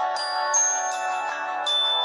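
Nokia C5-00 stock ringtone playing from the phone: held chords with high, ringing mallet-like notes entering one after another.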